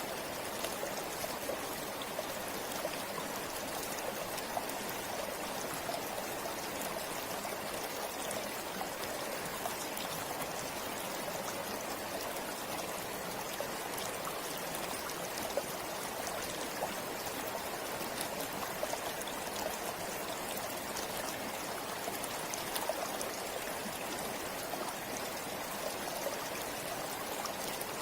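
Forest river flowing steadily over rocks, a continuous rush of water with small splashes and trickles.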